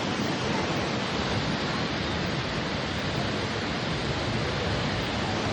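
Steady rush of a waterfall, falling water pouring without a break.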